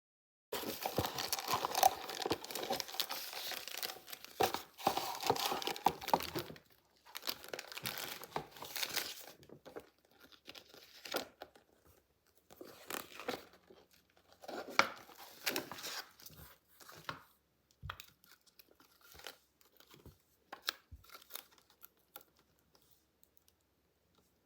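Packaging being unwrapped by hand: plastic and paper wrapping crinkling and tearing. The crinkling is dense for about the first six seconds, then comes in shorter bursts with scattered clicks, thinning out near the end.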